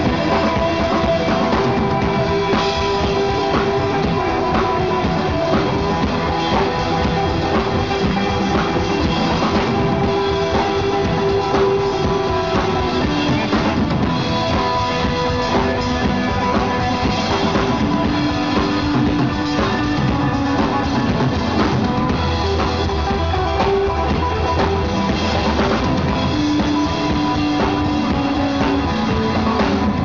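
Live three-piece band playing an instrumental passage, the drum kit prominent with bass drum and snare, under long held notes from another instrument.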